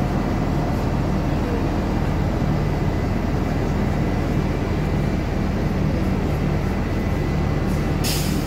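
Diesel engine of a double-decker tour bus idling close by: a steady low rumble, with a short hiss near the end.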